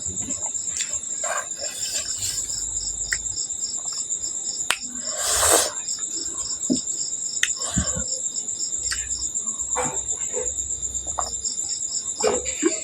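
Crickets chirping steadily in a fast, even pulse, with close-up eating sounds over them: small mouth clicks and smacks, and a louder slurp of noodles about five seconds in.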